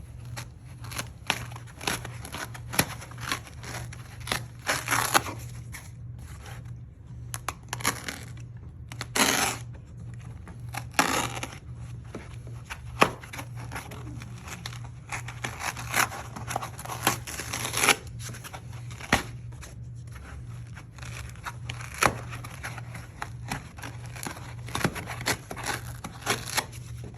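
Kaizen foam being cut and torn out by hand, a little at a time: irregular scratchy cuts, rips and crinkles, with a few longer tearing strokes, over a steady low hum.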